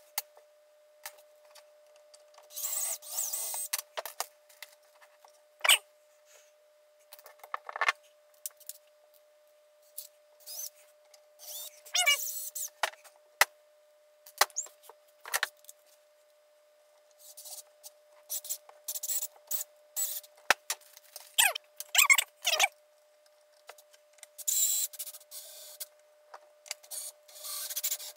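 Wooden model parts and hand tools being handled on a workbench during assembly: scattered clicks and knocks of wood on wood, with short rubbing scrapes, a few lasting about a second, over a faint steady hum.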